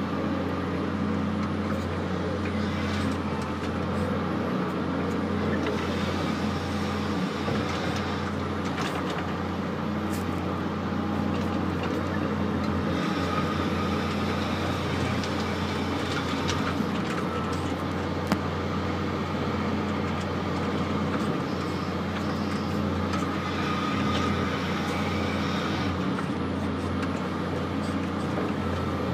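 Cat 568LL forest machine running steadily, heard from inside its cab, with the engine and hydraulics rising in several stretches as the grapple lifts and swings logs. There are a few sharp knocks, the loudest about two-thirds of the way through.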